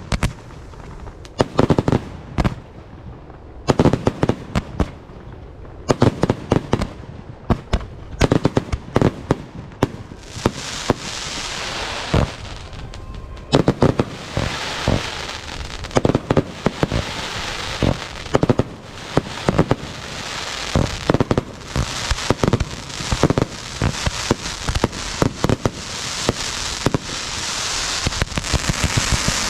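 Fireworks display: a rapid series of sharp bangs from bursting shells. From about ten seconds in, a dense continuous crackling joins the bangs and builds toward the end.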